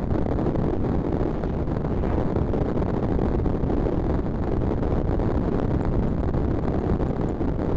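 Wind buffeting a moving camera's microphone at cycling speed: a loud, steady rush, heaviest in the low end.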